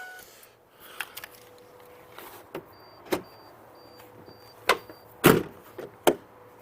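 A handful of sharp clicks and knocks, the loudest about five seconds in, with a run of five short, high beeps in the middle.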